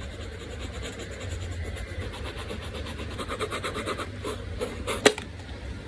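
A drawing tool scratching over sketchbook paper in quick back-and-forth strokes, about eight a second, as in hatching or shading. One sharp click comes about five seconds in.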